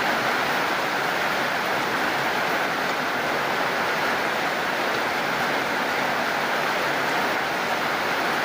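Steady rain falling, an even hiss with no separate drops, thunder or other events standing out.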